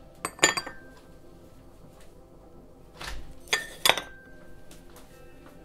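Dishes clinking against each other: a quick cluster of clinks about half a second in, then a rustle and two or three more clinks around three to four seconds in. Each strike leaves a short ring.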